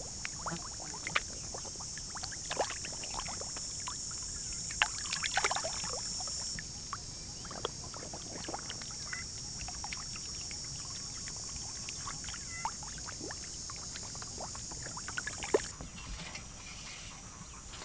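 Fish thrashing in shallow muddy water, giving a scatter of small irregular splashes and slaps over a steady high-pitched background buzz.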